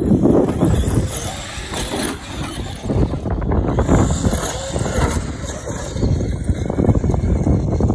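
Large radio-controlled cars driving hard over desert sand, with motor noise, tyres churning sand and wind on the microphone. The sound changes abruptly about three and a half seconds in as one clip cuts to another.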